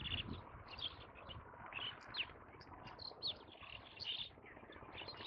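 Birds chirping: many short, high calls, some quick downward sweeps, overlapping faintly over a steady low background hiss.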